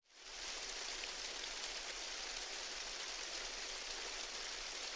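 Steady, even hiss of water noise like rain falling on water, fading in at the very start and then holding unchanged.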